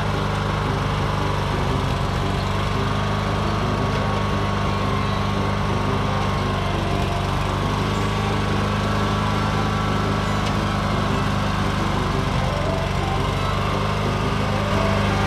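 Yard Machines 17.5-horsepower riding lawn mower's twin-cylinder engine running steadily as the mower is driven slowly across a trailer deck.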